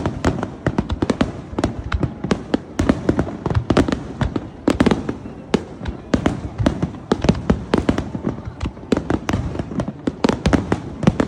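Fireworks exploding in a dense, irregular barrage, several sharp bangs and crackles a second overlapping one another.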